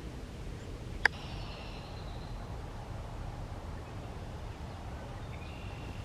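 Steady low outdoor rumble with faint, high, thin bird calls, and one sharp click about a second in.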